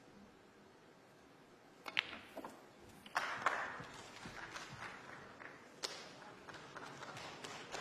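Sharp click of snooker balls striking about two seconds in, with a lighter knock just after as the pot drops. Then a faint spell of audience applause for the potted black.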